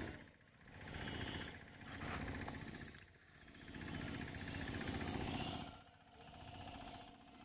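Spinning reel buzzing in four bursts of one to two and a half seconds each, while a big hooked catla is fought on rod and line.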